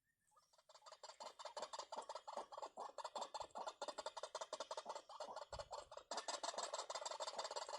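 White-breasted waterhen (ruak-ruak) giving a fast, dense chattering call that starts about half a second in and grows louder about six seconds in.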